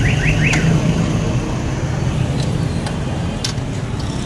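A steady, low engine drone runs throughout, with a few sharp metallic clicks of hand tools on the motorcycle. A rapid repeating electronic chirp, like a car alarm, stops about half a second in.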